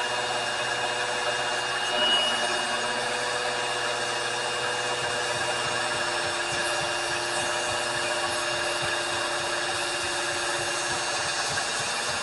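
Power grinder running steadily with a constant whine, grinding on a steel tool, with a brief louder moment about two seconds in.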